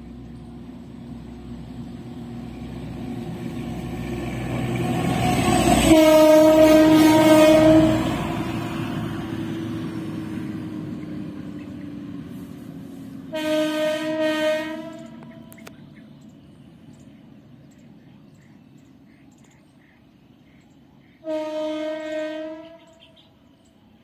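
A train passing on the line: its rumble builds to a peak as the locomotive horn sounds a blast of about two seconds, then dies away as the train recedes. The horn sounds twice more as it goes, each blast a little over a second long and fainter than the first.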